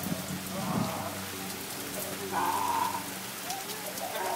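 Steady summer rain falling on pavement and grass, a continuous even patter. A brief louder sound stands out about two seconds in.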